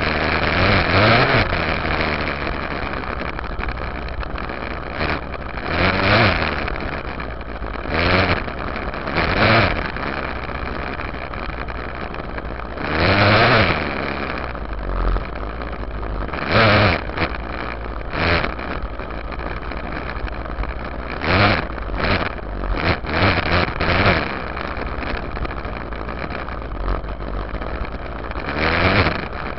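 Yamaha YZ dirt bike engine heard from a camera on its rear fender while riding, the engine note surging up and back down about a dozen times as the throttle is opened and closed between stretches of steadier running.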